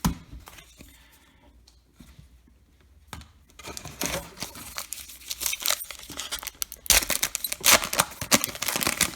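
A baseball card pack's wrapper is torn open and crinkled. There is a sharp knock at the start, and the crackling tearing noise begins about three and a half seconds in and is loudest near the end.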